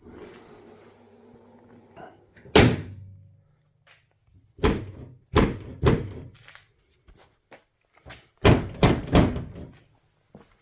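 An MG TF's bonnet being pushed down and slammed shut again and again: a loud thud, then three more thumps, then a quick run of about four, several with a short metallic clink. The bonnet catch is not latching, which the owner puts down to the catch not firing properly.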